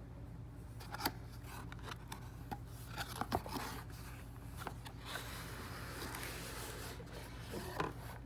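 Cardboard box and packaging being opened and handled: scattered clicks and scrapes, with a longer stretch of rustling and scraping after the middle. A steady low hum runs underneath.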